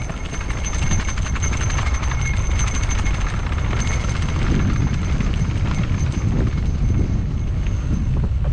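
Electric mountain bike ridden over a rough dirt trail: a steady low rumble from the tyres and wind, with dense rattling clicks from the bike.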